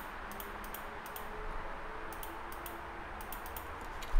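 Computer keyboard keys tapped in short irregular clusters of light clicks, over a low steady room hum.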